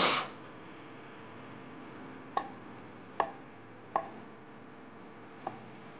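Chinese cleaver cutting down through a block of soft tofu and knocking on a wooden chopping board: four sharp knocks, spaced a little under a second apart from just over two seconds in, the last one fainter. A brief loud hiss comes right at the start.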